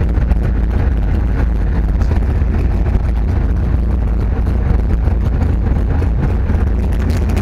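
Sherp ATV's diesel engine running steadily under load, a loud low rumble heard from inside the cabin.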